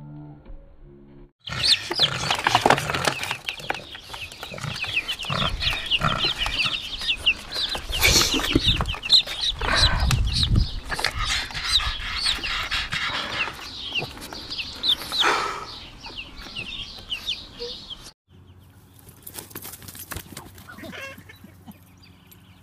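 A crowd of baby chicks peeping, many shrill chirps overlapping, with some low bumps mixed in. The chirping starts suddenly about a second and a half in and cuts off sharply a few seconds before the end.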